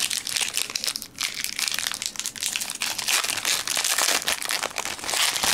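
Foil wrapper of a Pokémon trading-card booster pack being torn open and crinkled by hand: a dense, continuous crackling that stops suddenly at the end.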